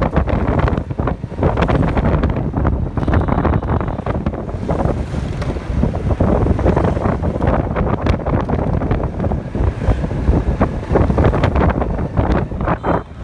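Heavy, gusty wind buffeting the microphone of a camera moving along a city street, over the running noise of motorbike traffic.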